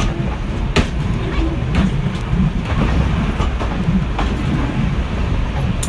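Vintage railway carriage running along the track, heard from its open end platform: a steady rumble of wheels on rails with a few sharp clicks.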